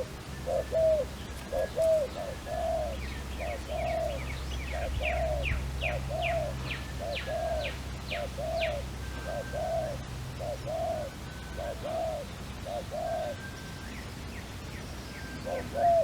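Dove cooing in a fast, steady run of short arched notes, about two a second, breaking off about thirteen seconds in and starting again near the end. Another bird gives a series of high, falling chirps in the middle.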